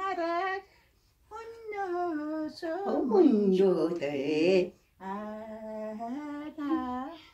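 Two women singing a song together in phrases, with two short breaks between them.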